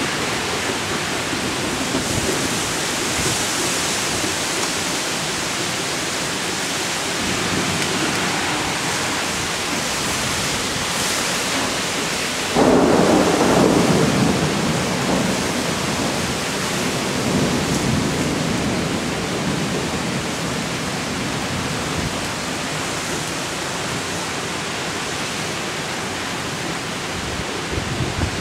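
Thunderstorm: steady heavy rain, with a sudden loud thunderclap about halfway through that rumbles on and fades over several seconds.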